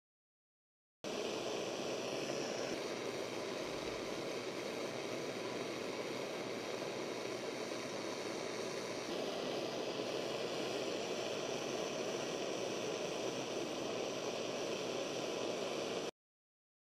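Steady rushing noise with a few faint hums underneath. It cuts in abruptly about a second in, shifts slightly about nine seconds in, and cuts off abruptly near the end.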